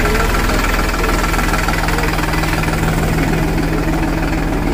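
Powertrac Euro 47 tractor's diesel engine running steadily, heard close up at the engine bay.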